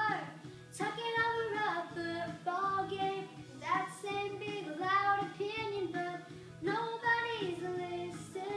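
A young girl singing a pop-country song, her voice moving through a sung melody with short breaks between phrases.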